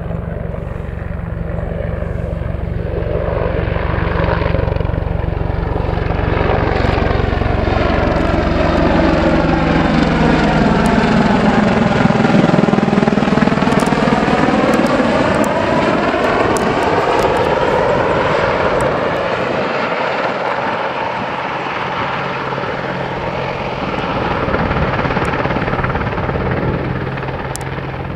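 Apache attack helicopter flying past, its rotor and twin turboshaft engines growing louder to a peak about twelve seconds in. The pitch drops as it passes, with a sweeping tone over the rotor noise. The sound eases off, then swells again near the end as it comes back in low to land.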